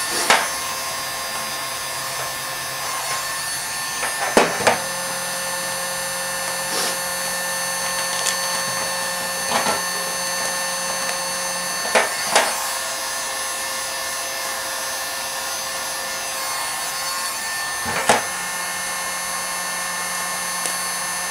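Electric heat gun's fan running steadily with a constant hum, while a handful of sharp clicks and knocks come from the grille and vinyl being handled on the aluminium work platform.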